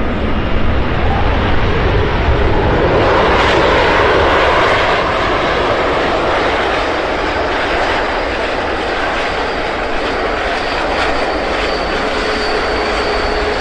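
Airbus A380's jet engines running with a steady, loud rushing roar that swells about three to five seconds in, then eases slightly. A thin steady whine joins near the end.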